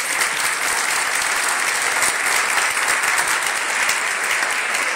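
Audience applauding steadily in a large stone-walled hall.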